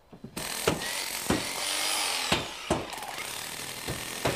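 A power tool running with a high whine, starting suddenly about a third of a second in, with about half a dozen sharp knocks along the way.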